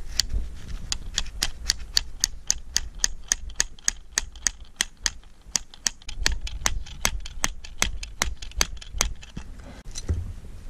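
A rapid, even series of sharp clicks, about four a second, stopping about nine seconds in, over a low rumble.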